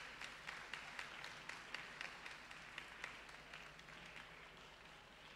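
Audience applauding, the clapping thinning out and fading away toward the end.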